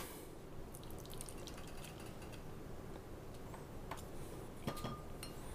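Faint liquid drips and small clicks as a meat-injector syringe is refilled from a jar of marinade.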